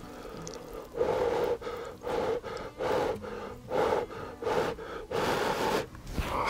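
A person slurping instant cup noodles in a quick series of short pulls, about seven in five seconds, starting about a second in.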